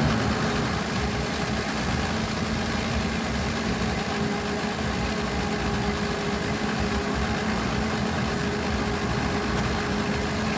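Honda del Sol engine idling steadily, its exhaust flowing through a freshly welded muffler that still leaks in at least one spot.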